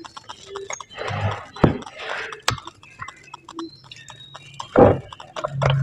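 Irregular clicks and knocks, the loudest near the end, with a steady low hum coming in about halfway through.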